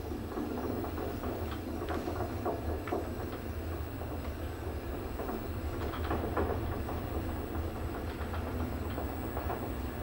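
AC traction elevator car travelling upward: a steady low hum with irregular rattles and clicks from the moving car.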